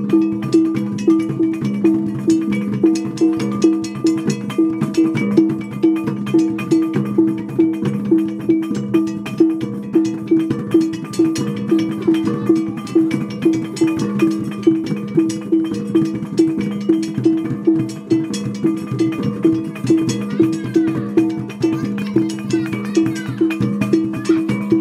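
Percussion music with a steady, even beat of about one and a half strikes a second over two steady low ringing tones.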